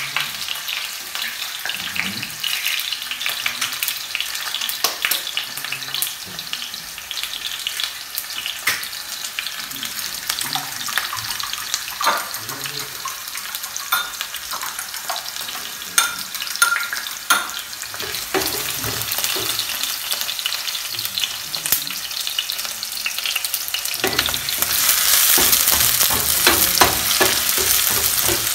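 Sliced red onions frying in oil in a stainless steel pan, a steady sizzle, with scattered sharp clinks of a utensil against a ceramic bowl as eggs are beaten. About 24 s in the sizzle grows louder while the onions are stirred with a wooden spoon.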